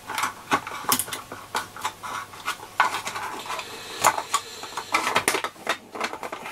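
Hard plastic clicking and knocking as a 3D-printed battery holder is handled and its lid is pushed down and snapped into place over a pack of AA cells.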